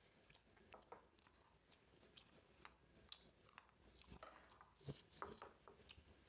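Faint eating sounds: scattered small clicks and crunches of chewing and of spoons against bowls, a little denser about four to five seconds in.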